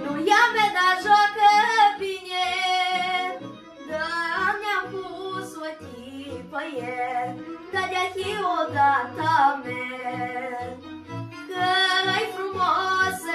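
A boy singing a Romanian folk song solo, with long held notes that bend in pitch, over instrumental accompaniment with a steady bass pulse.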